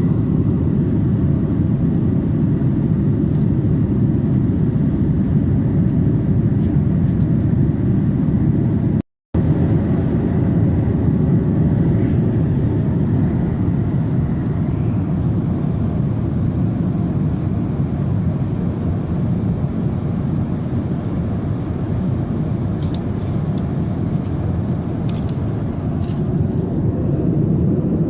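Steady low rumble of airflow and engine noise inside the cabin of a Boeing 787-10 airliner, broken by a brief dropout about nine seconds in.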